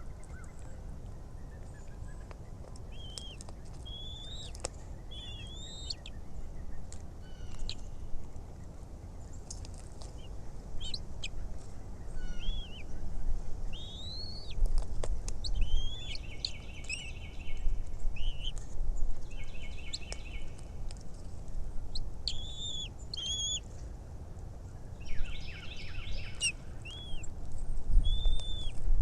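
Bald eagles calling at the nest: short, high, arched whistled notes again and again, broken by several runs of rapid chittering calls, over a steady low rumble.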